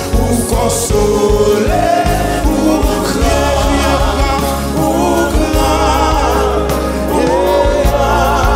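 Live gospel worship song sung in Haitian Creole by lead and backing singers with a band, including electric guitar. A sustained low bass comes in about three seconds in.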